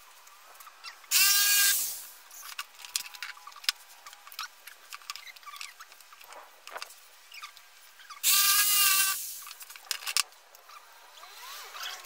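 A power tool motor whirs twice in short bursts of under a second each, about a second in and again near two-thirds of the way, each fading as it winds down. Between the bursts come small clicks and squeaks of bar and spring clamps being handled on the boards.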